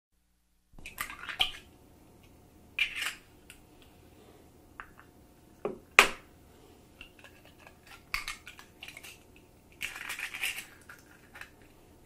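Eggshells being cracked and broken: a string of short crackling cracks in small clusters, the sharpest and loudest about six seconds in.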